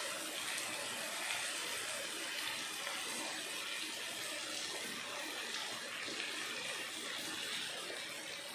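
Steady sizzling of onions and tomatoes frying in a non-stick pan as handfuls of chopped bottle gourd are dropped in by hand.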